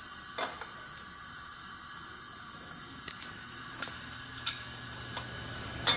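Steady hiss of compressed air fed into a Pontiac 400 cylinder through a compression-test hose and leaking past the piston rings, with about six sharp metal clicks from valve springs, retainers and keepers being handled on the cylinder head; the last click is the loudest.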